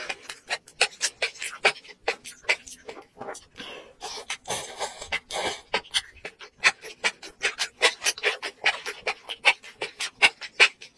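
Close-miked wet chewing and mouth smacking of enoki mushrooms in spicy sauce, a quick run of sharp clicks and smacks, several a second, with a longer wet stretch about four seconds in.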